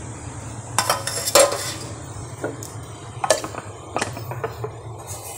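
Plates and dishes being handled on a stone countertop: a few sharp clinks and knocks, the loudest about a second and a half in, over a low steady hum.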